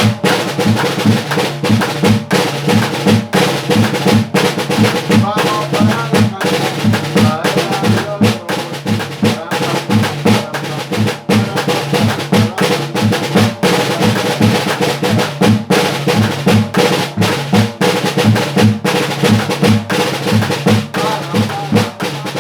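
Snare drum (redoblante) playing a Colombian Pacific rhythm with rolls, over steady low beats from a tin can struck as a bass drum.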